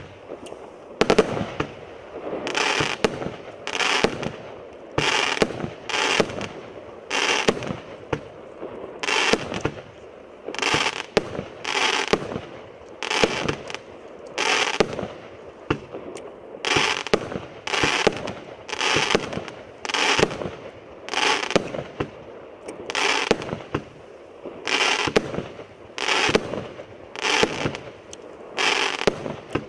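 B165 Atlas firework cake firing a steady barrage, about one shot a second, each shell bursting in the sky.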